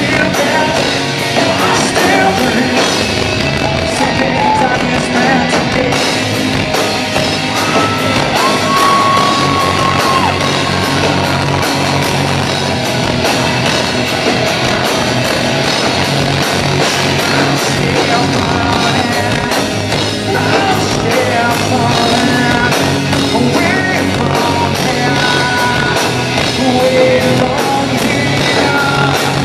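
Live hard rock band playing through a club PA: distorted electric guitars, bass and drums, with singing and crowd yells mixed in.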